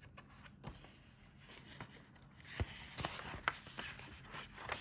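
Paper pages of a thin picture book being turned and handled by hand: soft rustles and a few light ticks and taps, mostly in the second half.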